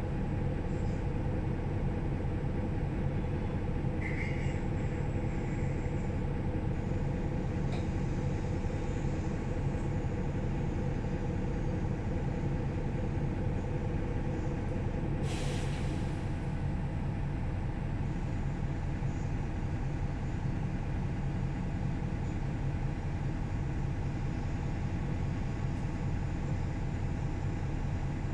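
Mercedes-Benz O530 Citaro Facelift city bus's diesel engine idling steadily at a standstill, with a short hiss of compressed air about halfway through.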